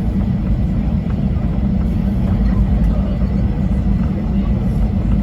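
Boeing 737-800 cabin noise while taxiing, its CFM56-7B engines at idle: a steady low rumble.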